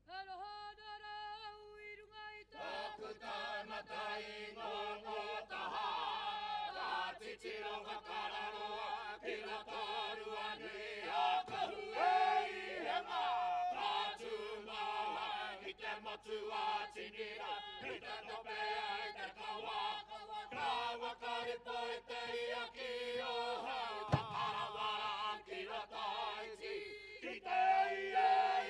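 A Māori performing group chanting in unison, men's and women's voices together. A single held voice with wavering pitch opens, and the whole group joins in about two and a half seconds later.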